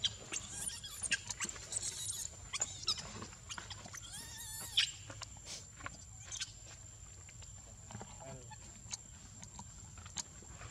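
Macaques grooming on rocks: scattered rustles and soft clicks, with a short, high, wavering squeal from a monkey about four seconds in. A faint steady high tone runs underneath.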